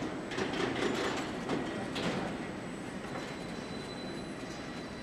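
Aircraft assembly hall noise: a handful of sharp metallic clanks and knocks in the first two seconds over a steady industrial din, which then carries on evenly.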